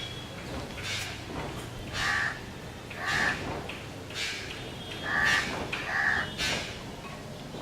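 A series of short, harsh bird calls, roughly one a second.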